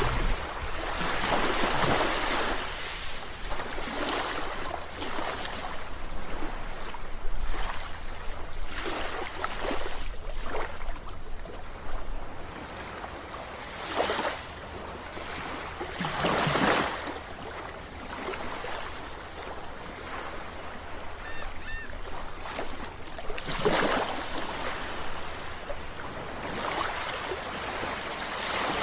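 Ocean waves breaking on a beach: surges of surf every few seconds, with the hiss of washing water between them.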